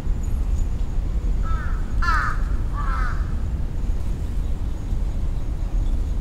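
A crow cawing three times in quick succession about a second and a half to three seconds in, the middle caw loudest, over a steady low rumble.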